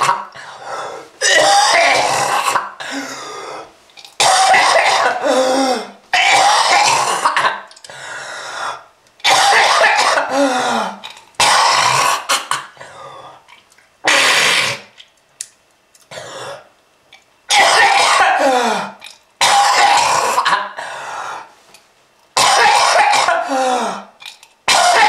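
A person coughing loudly in repeated fits, about ten in all, each one to two seconds of hacking and throat-clearing, with a brief lull about two-thirds of the way through.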